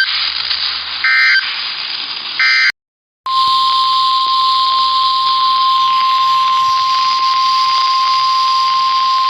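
NOAA Weather Radio emergency broadcast signalling: three short bursts of warbling digital SAME data tones over radio static, then a moment of dead air. About three seconds in, the steady single-pitch 1050 Hz warning alarm tone starts and holds. The tone signals that a warning is about to be read, here a tornado warning.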